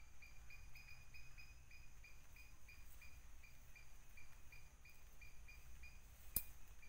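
Faint outdoor wildlife sound: a high chirping call repeating about three times a second over a steady high insect hiss, with one sharp snap or click near the end as the trap's sticks and wire are handled.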